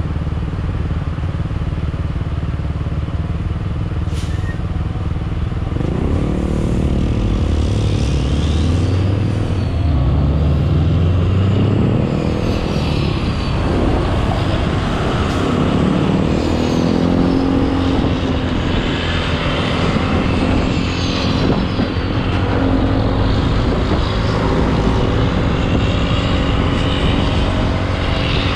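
A motor vehicle engine running over a steady low rumble; about six seconds in its note rises and falls several times, as if accelerating and shifting, then settles into a steady hum.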